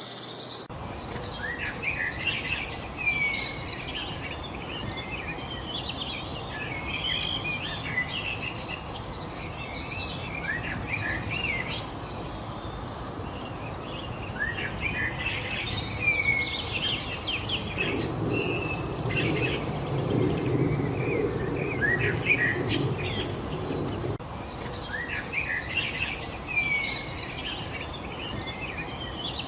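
Several small songbirds chirping and twittering at once, short quick high notes over a steady outdoor hiss. About eighteen seconds in, a low rumble joins for some six seconds, then fades.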